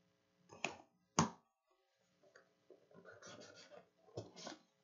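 Hands handling and opening a cardboard trading-card box: two sharp knocks, then soft scraping and rustling, then two more knocks near the end.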